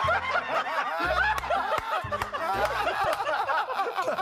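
People laughing hard: a rapid, continuous run of short laughs and giggles.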